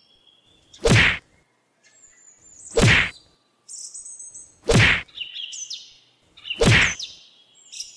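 A heavy thud repeating evenly about every two seconds, four times, over birds chirping and twittering high in the background.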